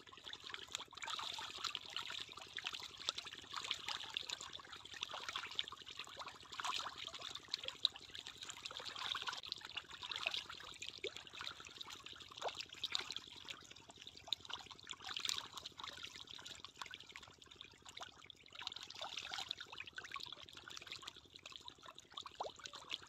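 Fish feeding at the water's surface: a continuous busy splashing and slurping, made of many small irregular splashes and plops.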